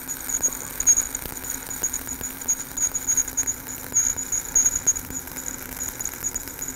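Stick-welding arc from a 3/32-inch 7018 electrode at 85 amps, crackling and hissing steadily with fast irregular pops, as a root pass is run uphill on a vertical plate.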